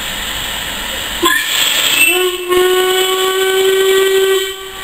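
Steam locomotive's whistle: a short toot about a second in, then a long steady blast lasting about two and a half seconds, over a steady hiss of steam.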